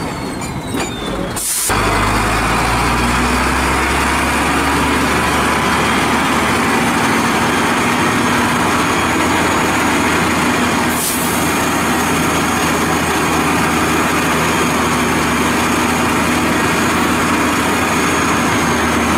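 Diesel engine of a HOWO three-axle dump truck running steadily under load as it drives the hydraulic hoist lifting the loaded tipper bed. The engine sound steps up about two seconds in, and there is one short sharp click about eleven seconds in.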